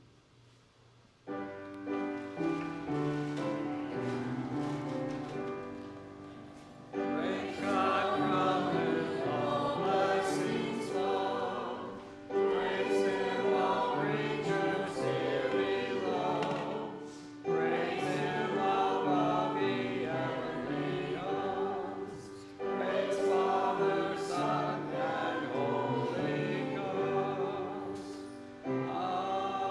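Choir singing a hymn over instrumental accompaniment. The accompaniment starts alone about a second in, and the voices come in about seven seconds in, singing in phrases of about five seconds.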